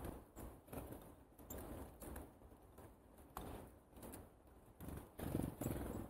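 Wind buffeting the camera's microphone in irregular gusts of rumbling noise, strongest near the end, with a few sharp clicks.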